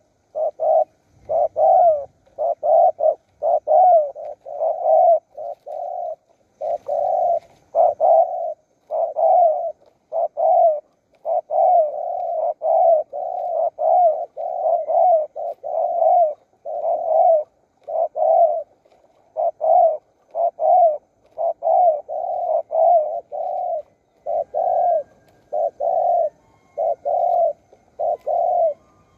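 Spotted dove cooing over and over in a continuous run of short, repeated coo phrases.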